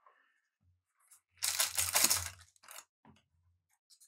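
Foil wrapper of a trading card pack torn open: one rough rip lasting about a second, with lighter rustles of the wrapper before and after it.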